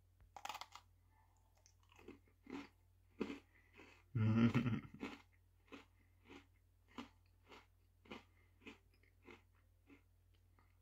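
A person biting into and chewing a crunchy golden Oreo sandwich cookie with cream filling. There is a crisp bite about half a second in and a louder sound about four seconds in, then steady chewing at a little under two chews a second.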